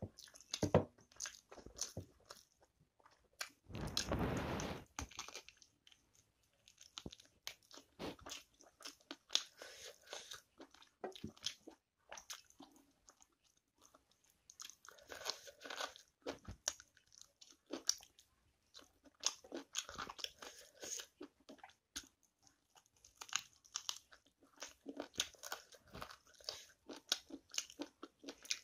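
Chewing and biting on chicken on the bone, with wet smacks and crunches in short irregular clicks. A louder rushing noise about a second long comes about four seconds in.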